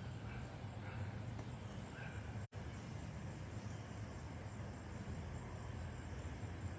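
Steady rushing wind and storm noise from a severe thunderstorm, heavy in the low end, with a few faint short chirps in the first two seconds and a faint steady high whine. The sound cuts out for a split second about two and a half seconds in.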